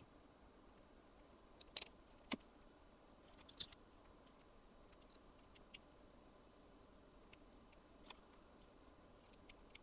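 Near silence with a few faint, sharp ticks scattered through it: a small precision screwdriver working the tiny screws out of a DJI O3 air unit's camera housing, and the small parts being handled.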